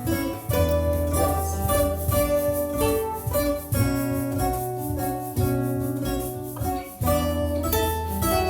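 Improvised acoustic guitar music: plucked notes and chords ringing over deep, sustained bass notes that change every second or so.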